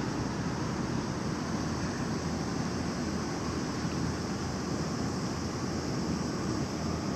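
Steady seaside noise: wind on the microphone mixed with the wash of water at the shoreline, unbroken and even throughout.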